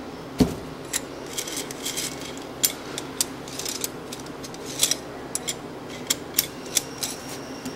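Irregular sharp metallic clicks and taps of hand tools and steel parts being worked on a hot-runner valve gate cylinder, with a dull knock about half a second in, over a steady low hum.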